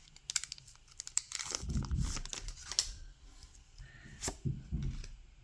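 Foil booster-pack wrapper being torn open and crinkled, a run of irregular sharp crackles and rustles that thins out after about three seconds, with a single sharper click near the end.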